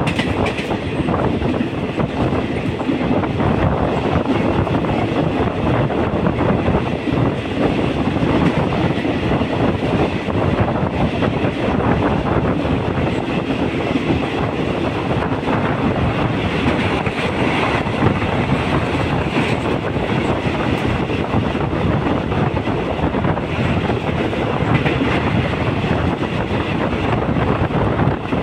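Passenger train running along the track: steady rumble and clatter of the wheels on the rails, heard from inside a moving carriage.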